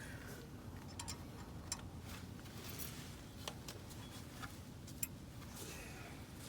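Scattered light clicks and taps of small metal hardware, a lock and washer, being handled and fitted on a scooter's rear wheel assembly.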